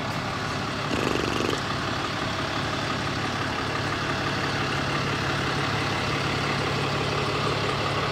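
Tow truck's engine idling steadily, with a short buzzing rattle about a second in.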